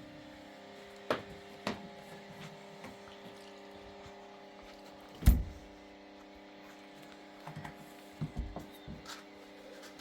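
A handful of sharp knocks and thumps, the loudest about five seconds in and a quick cluster near the end, over a steady low hum.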